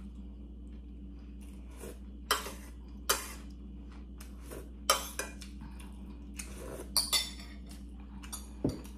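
Metal ladle and spoon clinking against a stainless steel pot and a bowl as broth is ladled out and eaten: several sharp, separate clinks over a steady low hum.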